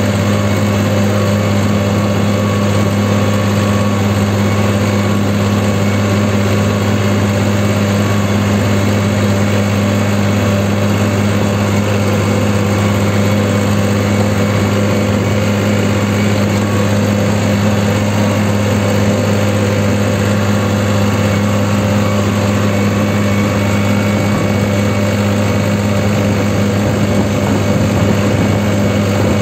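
New Holland 3630 Super Plus tractor's three-cylinder diesel engine running steadily at a constant throttle while the tractor drives on a road, heard from the driver's seat.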